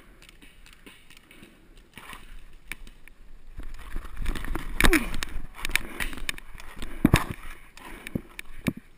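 Handling and movement noise as a paintball player scrambles across grass to an inflatable bunker: rustling of gear and clothing, footfalls and knocks, with scattered sharp pops. It picks up about two seconds in and is loudest around the middle.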